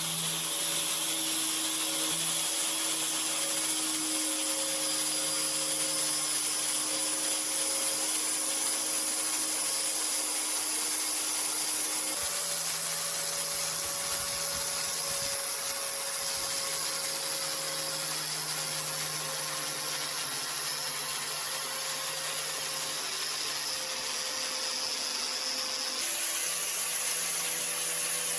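Electric power tool running steadily, a motor hum over a high abrasive hiss. The hum changes pitch about twelve seconds in and again near the end.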